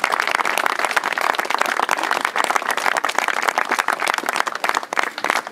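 Audience applauding: steady, dense hand-clapping.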